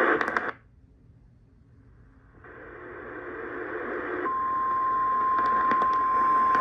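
NOAA Weather Radio broadcast between repeats of a warning. The recorded voice cuts off about half a second in and near silence follows. Then a band-limited radio hiss fades up, and about four seconds in a steady single-pitch alert tone of about 1050 Hz starts over the hiss and holds.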